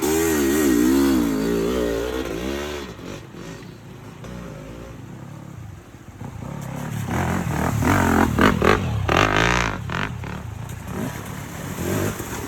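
Motorcycle engine revving, its pitch swinging up and down for the first few seconds. It falls back quieter, then comes in again louder and rougher about seven seconds in.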